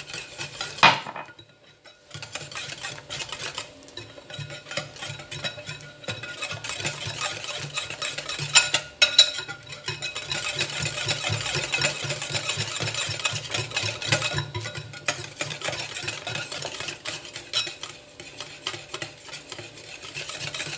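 Cake batter of beaten eggs, sugar and coconut being mixed in a bowl: a continuous fast stirring sound, after a single knock about a second in.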